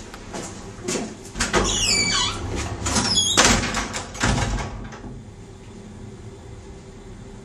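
Push-bar double doors being pushed open and swinging shut: a run of clattering knocks with a couple of short high squeaks, and the loudest clunk about three and a half seconds in.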